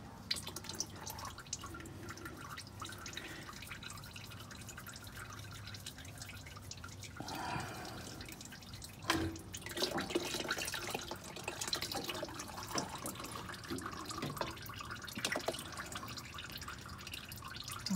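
Engine oil dripping in a thin stream from the opened oil filter housing of a 2004 Lexus GX470, heard as a run of small drips, with a single louder knock about nine seconds in.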